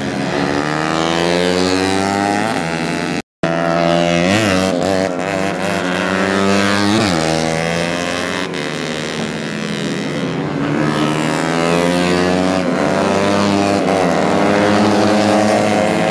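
Several tuned 130cc four-stroke racing motorcycles running at high revs down the straight, engines overlapping, with pitch dropping as bikes pass by, around four and seven seconds in. The sound cuts out for a moment about three seconds in.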